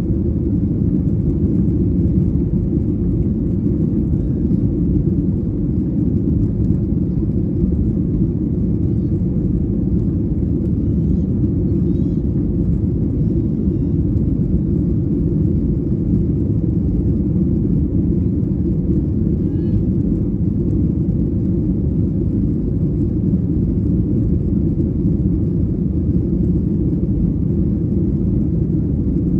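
Steady low rumble of a Boeing 737-800's cabin in flight: the CFM56 jet engines and the airflow over the fuselage, heard from a window seat.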